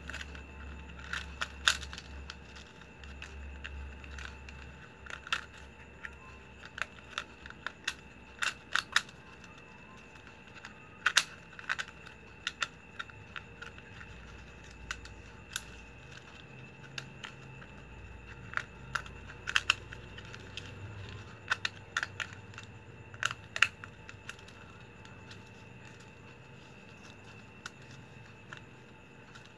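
Flat plastic strips being woven by hand: irregular sharp clicks and crinkles as the strips are bent, tucked and pulled through the weave, over a faint steady hum.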